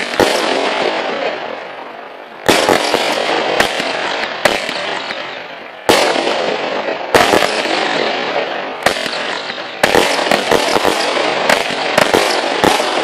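Nico Mephistos Fire consumer firework batteries firing shot after shot. Sudden bangs come about 2.5, 6 and 10 seconds in, each followed by a dense crackle that slowly fades, and a quick run of sharp bangs fills the last few seconds.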